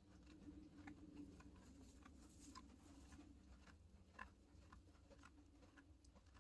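Near silence: faint scattered ticks and rustles over a low steady hum.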